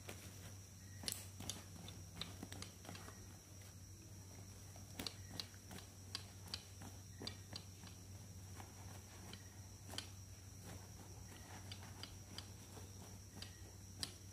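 Quiet handling of plastic fashion dolls in satin clothes: scattered light clicks and taps at irregular intervals as they are picked up and held, with faint rustling, over a steady low hum.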